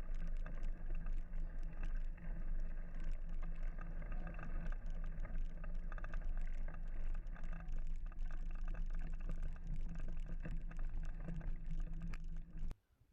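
Mountain bike riding on a dirt trail: steady rolling and rattling noise with many sharp clicks and knocks. It cuts off suddenly near the end.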